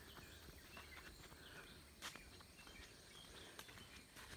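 Near silence: faint outdoor morning ambience with scattered faint bird chirps and a single click about two seconds in.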